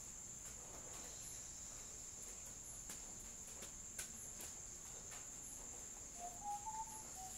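Faint, steady high-pitched trilling of crickets, with a few soft clicks, and near the end a short whistled note.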